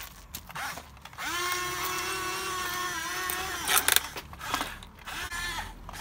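Electric motors of a Huina 580 RC excavator whining steadily for about two and a half seconds as the machine works, followed by a brief loud clatter and a couple of shorter whirs.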